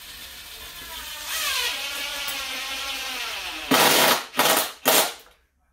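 Cordless drill driving a screw into a plywood platform: the motor runs with a steady whine that drops in pitch about a second in as the screw bites, then three short, louder bursts near the end as the screw is driven home.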